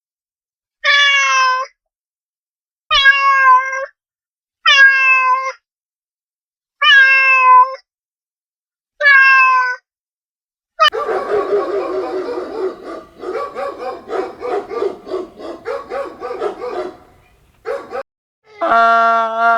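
A cat meowing five times, each meow about a second long and falling in pitch, followed by several seconds of many overlapping animal calls and then further single calls near the end.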